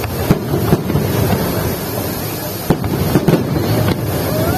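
Fireworks display going off: a dense crackling rumble with sharp bangs scattered through it, and a whistle that rises then falls near the end.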